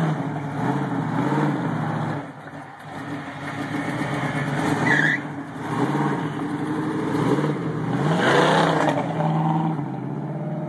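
Ford Bronco's engine, which has an exhaust leak, revving up and down several times as it is driven over dirt, with a hard rev and the wheels spinning in the dirt about eight seconds in.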